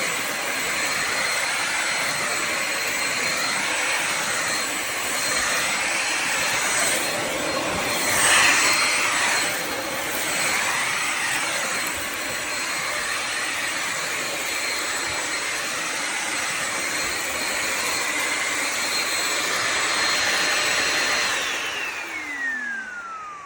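Bissell Symphony vacuum-and-steam-mop's vacuum motor running with a steady high whine and a rushing air noise that swells and eases as it moves. Near the end it is switched off and the whine falls away as the motor spins down.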